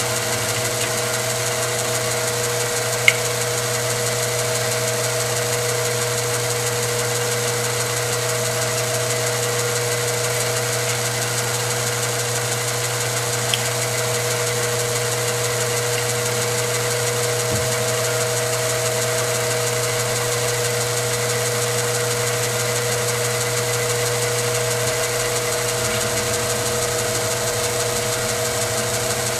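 Vertical milling machine running steadily as its end mill cuts a slot through the wall of a cylindrical shotgun muzzle brake. The steady motor and spindle drone carries two brief sharp ticks, one about three seconds in and one near the middle.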